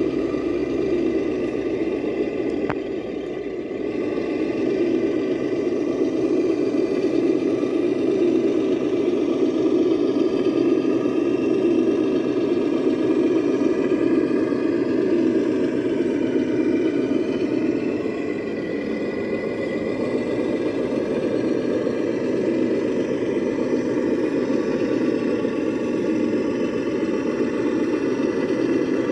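Electric motor and geared drivetrain of a Traxxas TRX6 6x6 RC hauler whirring steadily as it crawls over an obstacle, dipping briefly about three seconds in.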